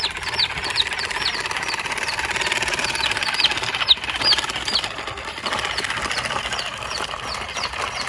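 Small electric motor and plastic gearbox of a toy RC dump truck buzzing steadily as the bed tips up. High, short, falling peeps from a chick come in runs of several over it.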